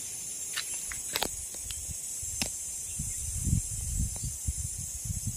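Insects buzzing in a steady, high-pitched drone, with a few sharp clicks in the first half and low rumbling on the microphone from about halfway through.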